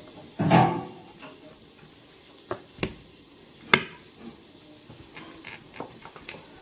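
Kitchen knife and utensils clinking while chicken leg pieces are scored: a loud ringing metal clank about half a second in, then three sharp knocks and a run of lighter taps.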